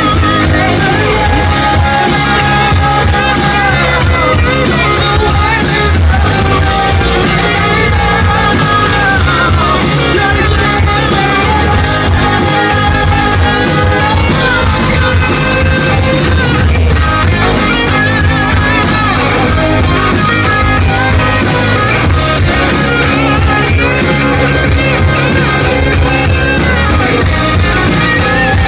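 Live rock band playing a song loudly and steadily, with long held notes that waver and bend in pitch over a full low end.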